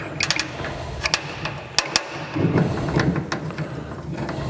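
A truck-rack bed clamp and its bolt being fitted by hand under a pickup bed rail: a scattered series of sharp clicks and knocks, with rubbing and rattling handling noise around the middle.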